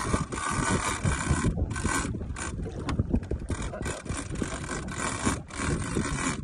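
Fishing reel being cranked to wind in a hooked fish, the line under load, with wind rumbling on the microphone.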